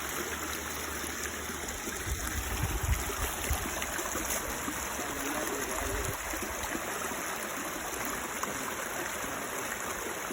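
Running water of a stream or falls, a steady rush, with a few low bumps about two to three seconds in and again about six seconds in.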